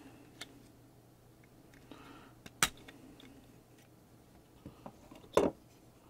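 Small clicks and snaps of plastic as a circuit board is worked free of its plastic housing, with one sharp, loud snap about two and a half seconds in and another near the end.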